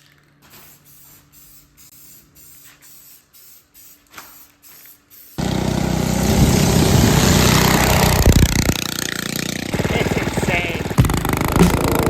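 A small go-kart engine running loud and rough, cutting in suddenly about five seconds in after a quiet stretch with a faint hum and light ticking.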